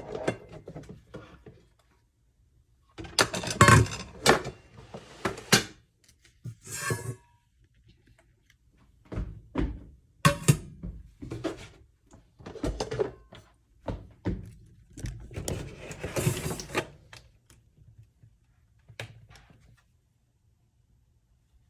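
Irregular clunks, knocks and rustling as the coffee maker and its parts are handled, with the loudest bursts about 3 to 6 seconds in and around 10 and 16 seconds.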